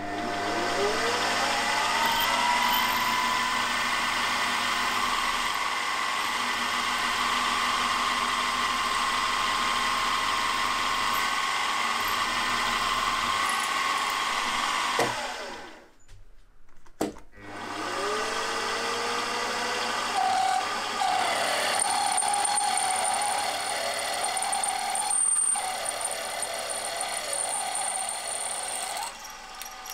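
Milling machine spindle starting with a rising whine and running steadily while a 6 mm drill cuts into a 6082-T6 aluminium conrod blank. About halfway through it stops, then starts again with a rising whine and runs as a larger 29/64-inch drill opens up the big-end hole. It stops near the end.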